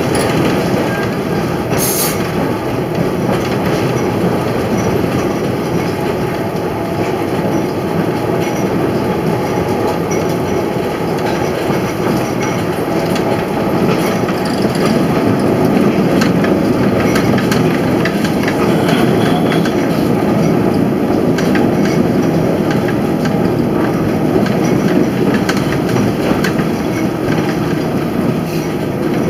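Vintage electric streetcar running along its track, heard from inside the car: a steady rumble of wheels rolling on the rails, with scattered light clicks.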